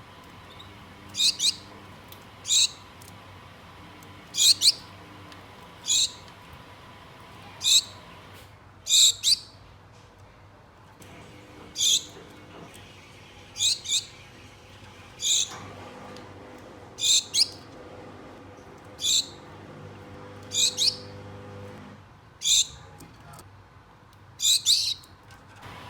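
Gouldian finches giving short, high contact calls, singly or in quick pairs, every second or two.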